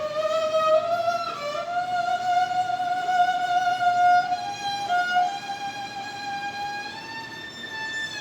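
A violin with only one string left on it, bowed in a slow melody of held notes that slide from one pitch to the next. It demonstrates Pythagoras' monochord: changing the sounding length of the single string changes the note.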